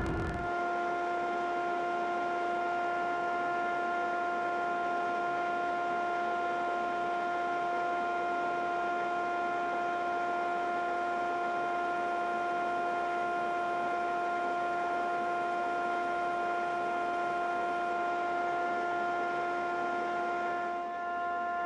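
Disc sander motor running at steady speed: a constant whine made of several steady tones over a hiss.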